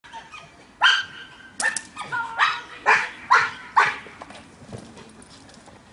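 Belgian Malinois barking: about six sharp barks in quick succession, roughly half a second apart, from just under a second in until about four seconds in.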